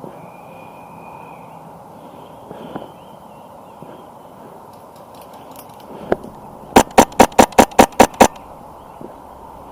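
HPA airsoft rifle with a PolarStar F2 engine firing a rapid string of about eight sharp shots, roughly five a second, after several seconds of quiet outdoor ambience.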